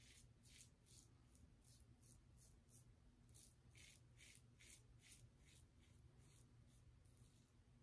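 Faint scratching of a double-edge safety razor, loaded with a Gillette 7 O'Clock Sharp Edge blade, cutting stubble on the neck against the grain in short, quick strokes, a few a second.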